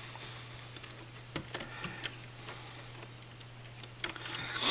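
Light, irregular clicks and ticks of a small hand driver and metal parts being worked while fitting a steering link on a scale RC crawler's front axle, over a steady low hum. A brief louder rush of noise comes near the end.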